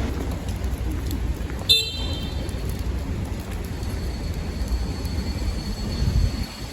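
Street traffic rumbling steadily, with one brief high-pitched horn toot about two seconds in.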